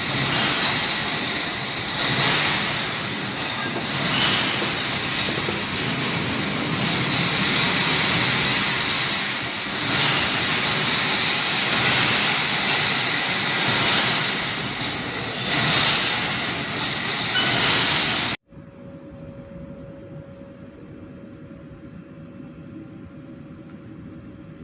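Welded wire mesh machine running: a loud, continuous mechanical clatter and hiss with a steady high whine. About three-quarters of the way through it cuts off abruptly to a much quieter steady hum.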